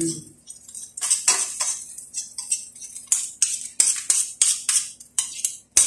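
Metal ladle stirring and scraping around a stainless steel frying pan: a quick, irregular run of clinks and scrapes against the pan.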